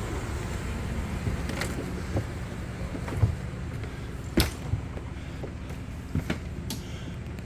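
A few sharp knocks and clicks, like a motorhome's entry door and steps being worked, over a steady low rumble. The loudest knock comes a little past halfway.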